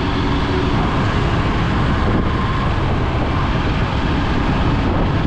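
Steady, dense road traffic noise: many vehicle engines and tyres at once, with a constant low rumble.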